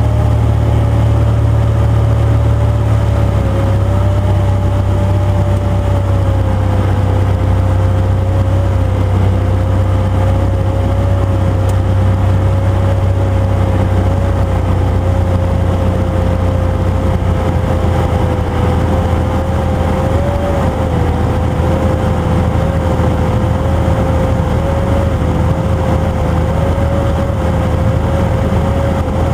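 1958 Cessna 172's Continental O-300 six-cylinder engine and propeller droning steadily, heard inside the cabin on landing approach, with much of the propeller noise filtered out. A steady tone in the drone sinks slightly over the first several seconds.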